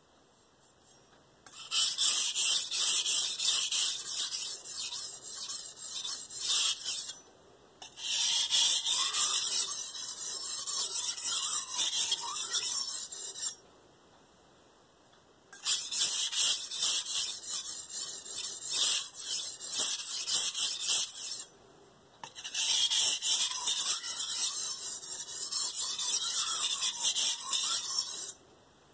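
KitchenAid santoku's steel blade stroked rapidly back and forth on a wet Shapton Pro 1000-grit whetstone: four runs of quick rasping strokes, each five or six seconds long, with short pauses between them and a faint squeal in some runs. These are light-pressure passes to knock down the burr on the edge.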